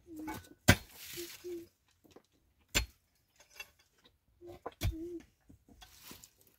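Pickaxe striking stony soil three times, about two seconds apart, each blow a sharp clink of metal on stones; the first is followed by a short rattle of loosened earth.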